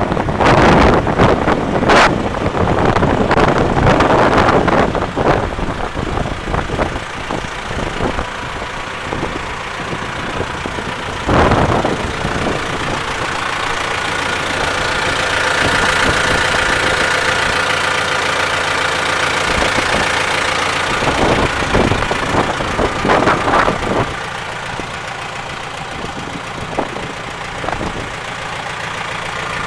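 JCB 3CX backhoe loader's diesel engine idling steadily. Wind buffets the microphone in the first few seconds, and a few knocks come about 11 seconds in and again near 21 to 24 seconds.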